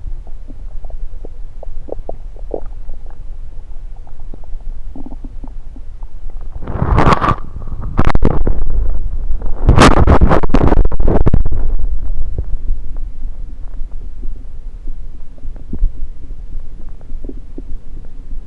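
Human stomach and bowel gurgling heard through a stethoscope pressed on the belly. Small pops and gurgles over a low steady rumble, then loud gurgles about seven and eight seconds in and a longer loud gurgling bout around ten seconds in that lasts about two seconds before it quietens again.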